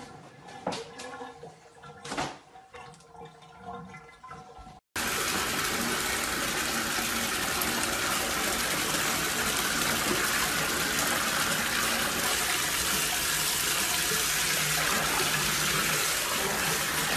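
A few soft knocks, then, cutting in suddenly about five seconds in, a bathtub tap running hard into a filling tub: a steady, loud rush of water.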